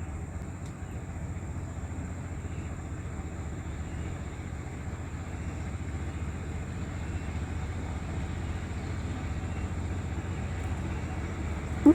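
Steady low rumble, growing slowly louder, with a short thump near the end.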